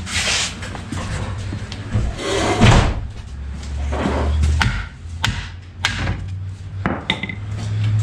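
A run of sharp knocks with some scraping and clatter as the bolted rear axle bearing cover of a 1969 VW Beetle, its bolts already removed, is knocked loose from the rear brake backing plate.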